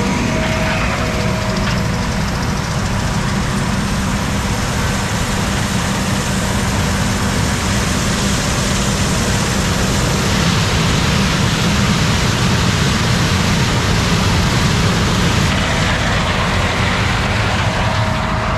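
Combine with a six-row corn head running steadily while harvesting corn: a loud, even machine noise that does not let up.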